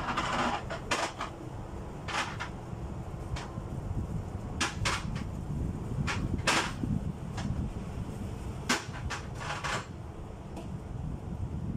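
Irregular knocks, clicks and short scrapes of things being handled and set down while a refrigerator is cleaned out, over a low steady hum.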